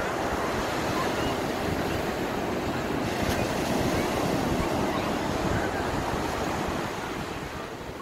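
Surf breaking close in and washing up a sandy beach: a steady rushing that swells near the middle and eases near the end. Wind buffets the microphone.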